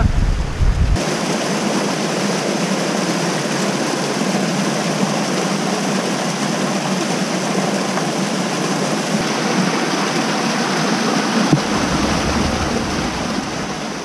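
Small waterfall pouring down a narrow rock chute, a steady rush of water, with a single low bump near the end.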